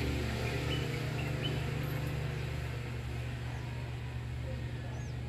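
A steady low rumble with a fine pulsing texture, and a few faint short high chirps in the first second or two and again near the end.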